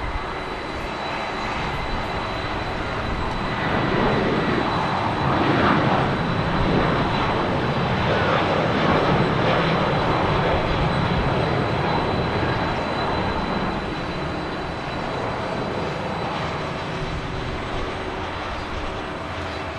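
Boeing 747-400's four jet engines at taxi power as the jumbo taxis close past: a steady rush with a thin high whine. It grows louder over the first few seconds, holds through the middle, then eases off toward the end.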